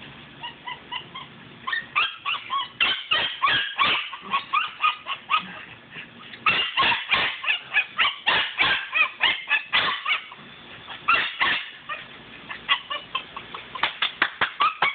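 Eight-week-old Belgian Malinois puppy yapping in rapid runs of short, high-pitched yips and barks, starting about two seconds in and breaking off briefly twice, excited while biting and tugging in prey drive.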